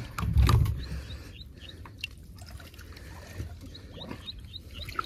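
Water trickling and sloshing as bare hands work in wet mud and water, with a low bump in the first second.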